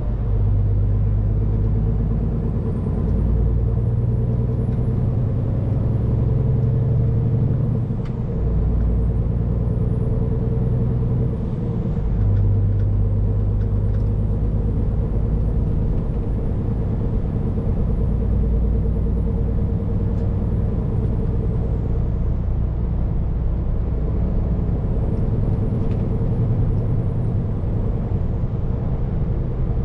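Scania P410 truck's diesel engine running under way, heard from inside the cab: a steady low drone whose note dips and changes twice, about eight and twelve seconds in, with a faint high whine rising and falling over it several times.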